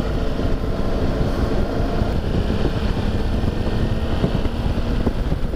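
Motorcycle riding at road speed: the engine running steadily under a dense, low rush of wind on the microphone.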